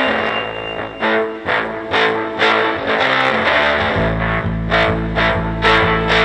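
Recorded rock music: a distorted electric guitar riff over regular sharp percussion, with a bass line coming in about four seconds in.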